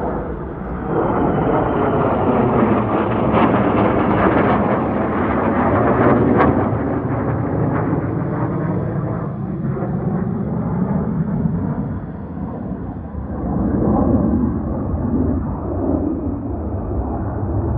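A pair of fighter jets making a low pass over the runway: loud jet roar whose pitch falls as they go by, with a crackling edge in the first half and a second swell of roar near the end.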